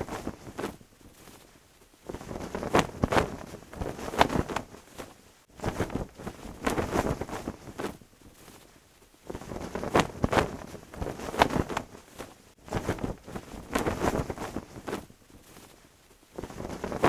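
A cloth flag flapping and snapping in gusty wind. It comes in surges a second or two long, separated by short lulls.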